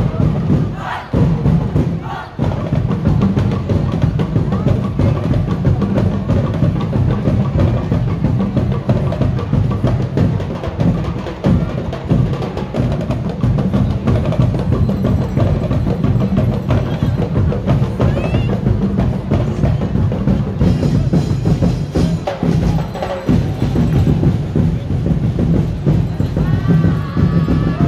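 Dinagyang tribe drum ensemble playing a fast, dense beat on bass drums and other percussion, loud and without a break.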